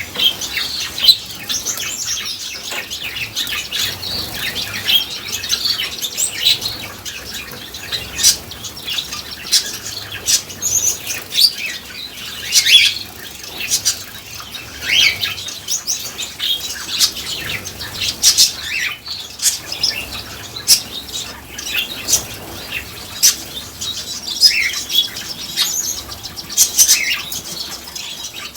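Small cage finches, Gouldian finches and Bengalese (society) finches, giving many short, high chirps and calls at an irregular pace, with bursts of wing fluttering as they bathe.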